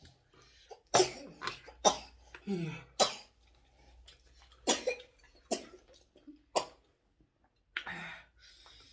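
A person coughing repeatedly: a string of short, sharp coughs spread across several seconds, ending in a longer, rougher cough or throat-clear.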